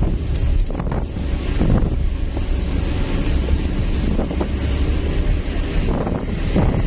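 Truck cab interior at highway speed: the engine's steady low rumble mixed with road and wind noise.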